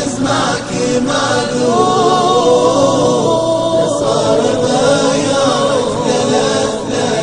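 Nasheed voices in chorus singing a drawn-out melodic passage with no clear words, over a steady low vocal drone.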